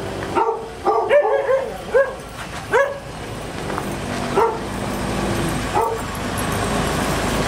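A dog barking: a quick run of short barks in the first three seconds, then single barks about four and a half and six seconds in. A steady engine hum builds in the background during the second half.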